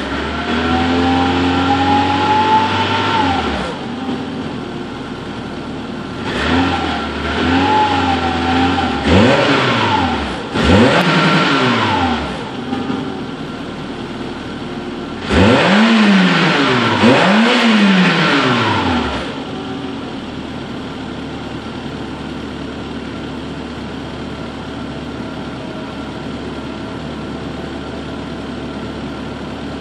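Peugeot 106 Rallye's 1.6-litre 8-valve four-cylinder engine on its stock exhaust, being revved. It holds revs twice in the first several seconds, gives a run of quick blips, then two sharp blips about halfway through, and settles into a steady idle for the rest.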